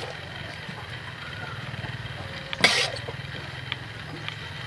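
A steady low mechanical hum, with a short burst of hiss about two and a half seconds in.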